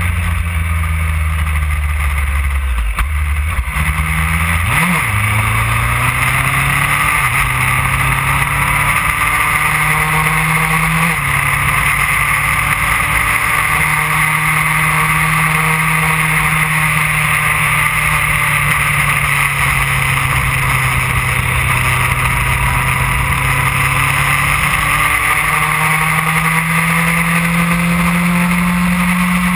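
2008 Yamaha R1's inline-four engine running at cruising speed under a constant rush of wind noise. Its pitch holds mostly steady, with a few shifts up and down, including a quick rise and fall about five seconds in.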